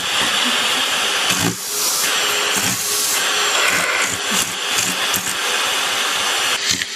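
Vacuum cleaner running steadily, with short dips in its sound about a second and a half in and near the end.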